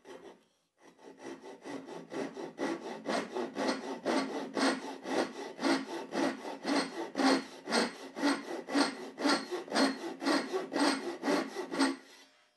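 Double-edged Japanese pull saw crosscutting a block of softwood clamped in a vise: a steady run of rasping saw strokes, about three a second, soft at the start of the cut and growing louder over the first few seconds, stopping shortly before the end.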